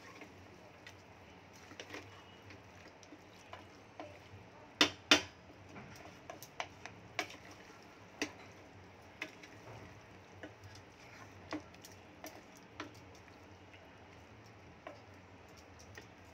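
A wooden spatula stirring mutton and spice masala in a metal pressure cooker pot, knocking and scraping against the pot's sides in irregular clicks, with two louder knocks close together about five seconds in.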